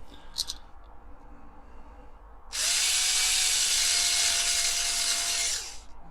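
Small electric drill with a rivet-head bit drilling out the rivet of a diecast model car: a few light clicks, then the drill spins up, runs steadily for about three seconds and winds down.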